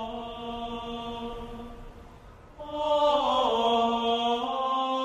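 Slow sung chant on long held notes, played as background music. One held note fades away about halfway through, then a new phrase begins and steps down in pitch.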